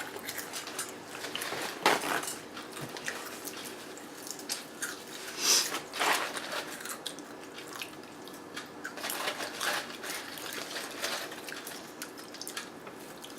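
Eating sounds: wet chewing of spicy snacks, with scattered small clicks and crunches; the loudest come about two seconds in and again about six seconds in.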